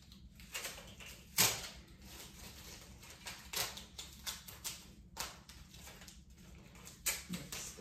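Blue painter's tape being pulled off the roll and torn into strips: a series of short, sharp rips and crackles at irregular intervals, the loudest about a second and a half in.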